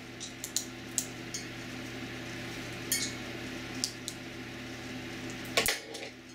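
Scattered small clicks and taps of metal alligator clips and 9-volt batteries being handled while a lead is clipped onto the battery terminals, the loudest clatter near the end. A steady low hum underneath cuts off at that moment.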